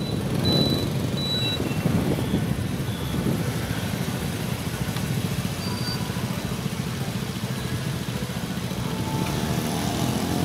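Motorbike engines running steadily in street traffic, heard from among the riders.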